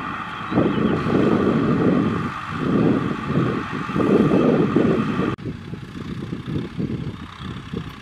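Kubota M6040SU tractor's diesel engine running under load while pulling a disc plough through dry soil, with a steady high whine over the engine. About five seconds in, the sound changes abruptly to a quieter, duller engine sound.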